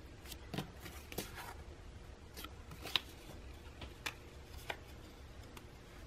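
Faint rustling and light ticks of paper being handled: a stitched paper pocket and tags lifted and turned against the journal's pages, in scattered soft touches rather than any steady sound.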